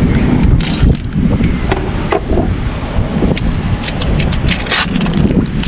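Wind buffeting the microphone in a steady low rumble, with scattered sharp crackles from a foil steak package being cut open and handled.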